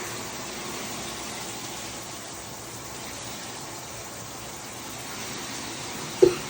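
Steady hiss, then near the end a person gives a sudden, loud cough.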